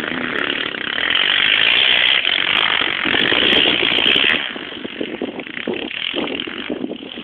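Motocross dirt bike engines revving hard as riders race past, loudest about a second in and falling away about four and a half seconds in.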